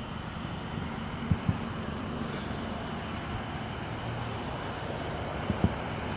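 Two pairs of short, dull firework booms, a pair about a second in and another near the end, over a steady hum of idling cars and traffic.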